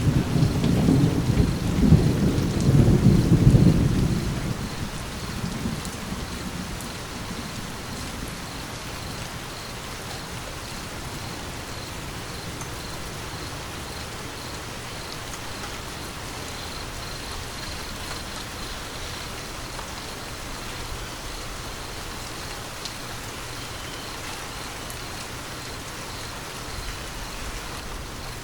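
Steady rain falling, with a loud low thunder rumble at the start that dies away within about five seconds, leaving only the even hiss of rain.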